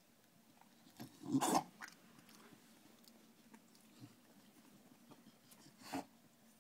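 Three-week-old Staffordshire bull terrier puppies stirring on a blanket: faint mouthing and rustling sounds, with a brief louder noise about a second and a half in and a smaller one near the end.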